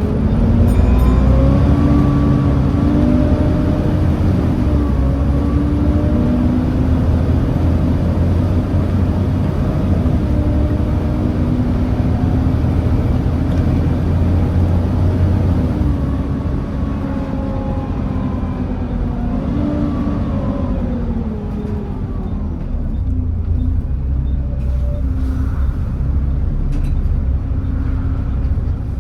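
Volvo B7TL double-decker bus with its Volvo D7C diesel and ZF Ecomat automatic gearbox, heard from on board while driving. The engine and drivetrain pitch rises and falls as the bus pulls away and changes gear. It drops off about two-thirds of the way through, then builds again near the end.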